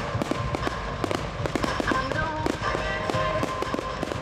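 Fireworks display with many shells and fountains going off together: dense, irregular crackling and popping, several sharp reports a second over a continuous rush.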